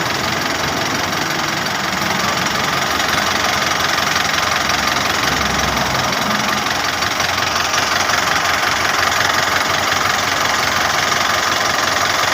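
Engine idling while air rushes into the alternator's vacuum pump through its pulled-off hose, a steady loud hiss that builds slightly after about two seconds. The strong suction shows the vacuum pump is working.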